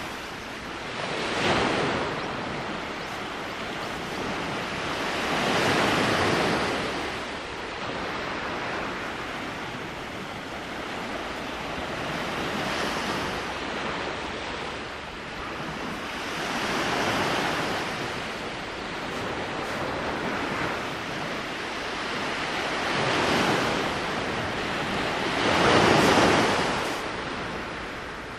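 Small waves breaking and washing up onto a beach. The sound swells and fades every few seconds, and the loudest wash comes near the end.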